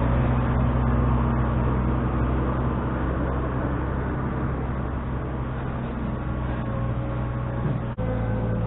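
An engine running steadily at an even speed, with a brief sudden break near the end.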